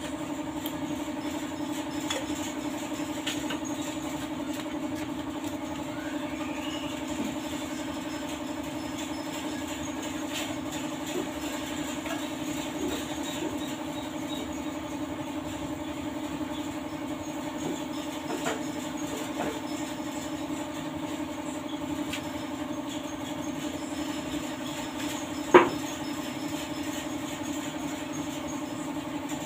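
A steady machine hum, with a single sharp click near the end.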